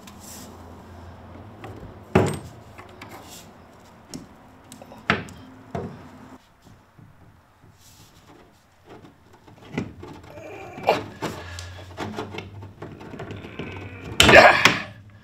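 A PEX crimp tool and PEX tubing being handled at a brass tee fitting: scattered sharp clicks and knocks against the plywood floor, with a louder burst of metal clanks near the end as the tool is worked on the fitting.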